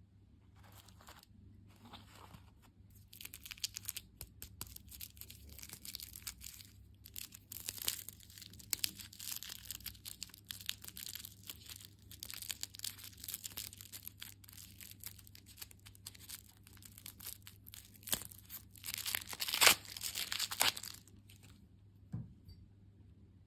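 Plastic candy wrapper packaging being crinkled and torn open, a dense run of crackling and rustling with a louder burst of tearing near the end.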